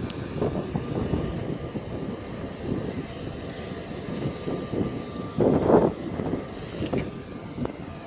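Allegiant Airbus A319's jet engines running with a steady rushing roar and a faint steady whine, with a louder surge about five and a half seconds in.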